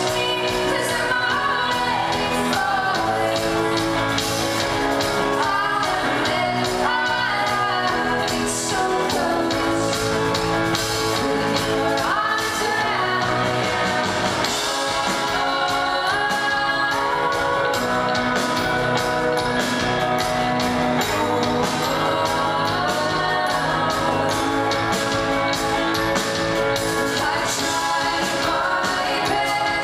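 Live pop-rock band playing: a woman singing lead over piano, electric guitar and a steady drum beat, heard through the PA in a large theatre.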